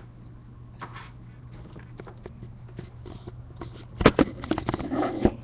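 Handling noise from a webcam being moved and repositioned: a cluster of sharp clicks and knocks near the end, over a steady low hum.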